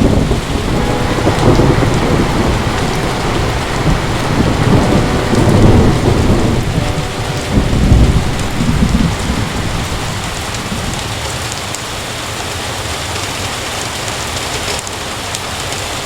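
Heavy rain falling steadily, with a long roll of thunder that swells several times over the first ten seconds or so and then fades, leaving the rain.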